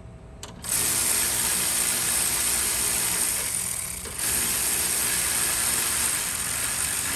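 Power tool running in two long steady runs, about three seconds each with a short break between, driving in a long bolt.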